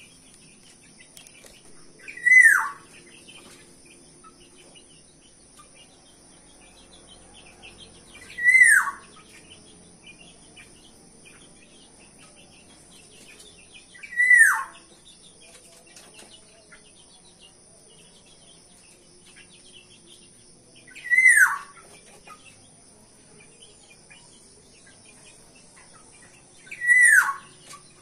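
Black-naped oriole (kepodang) calling: a loud, clear whistled note that slides downward, given five times about every six seconds.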